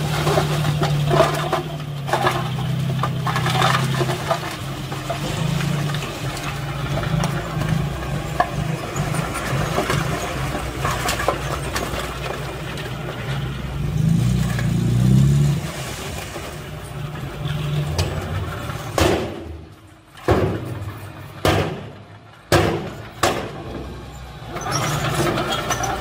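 Diesel engine of a 5-ton dump truck running steadily as the bed tips and soil and rocks slide out, the engine rising briefly about halfway through. Several sharp knocks come near the end.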